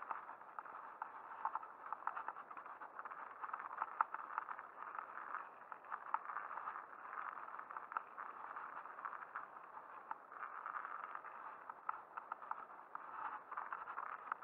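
Mountain bike ridden over a wet, muddy trail: a steady noise from the ride with frequent small clicks and rattles from the bike on the bumps.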